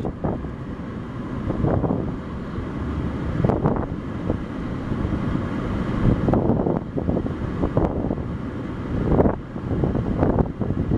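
Gusty wind buffeting the microphone, a rough low rushing that swells and drops every second or two.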